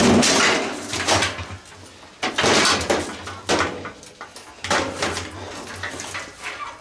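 Washing machine's sheet-metal cabinet being tipped over and shifted: a series of scraping and clattering noises, loudest at the start.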